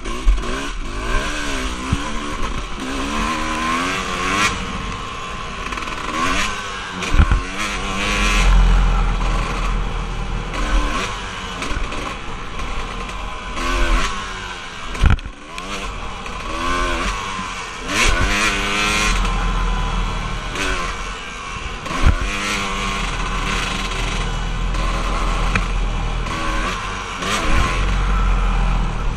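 Off-road vehicle engine being ridden hard, its pitch sweeping up and down over and over as the throttle is opened and closed. A strong low rumble runs underneath, and several sharp knocks are heard.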